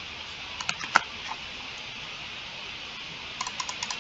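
Computer keyboard keystrokes: a few separate clicks about a second in, then a quick run of about six near the end, over a faint steady hiss.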